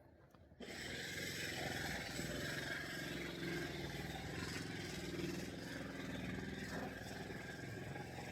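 City street traffic: vehicle engines and tyre noise, starting abruptly about half a second in and then running steadily.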